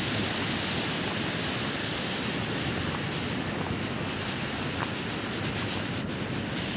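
Flood-swollen mountain river rushing, a steady heavy noise of churning water.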